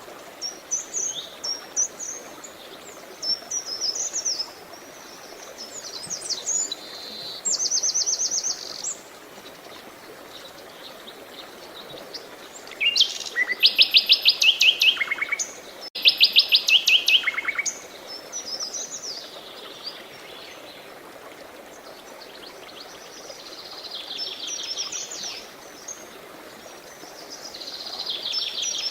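Songbirds singing in short, varied phrases and fast trills, over a steady rush of running water. The loudest part is two rapid trilled phrases about halfway through.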